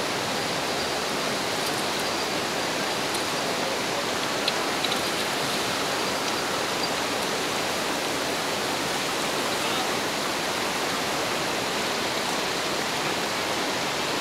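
Steady rush of flowing river water, with a brief sharp tick about four and a half seconds in.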